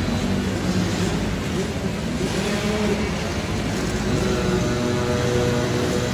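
Engines of two youth racing ATVs running and revving, their pitch rising and falling as the riders work the throttle.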